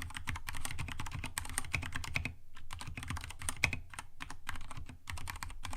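Mechanical keyboard with Cherry MX Red linear switches being typed on quickly: a dense, fast run of keystroke clacks, with a brief pause a little over two seconds in.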